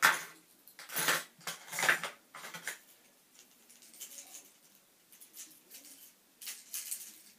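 Hard plastic fishing lures clicking and rattling as they are handled and picked out of a clear plastic tackle box, in a string of short clatters that are loudest in the first three seconds and lighter after that.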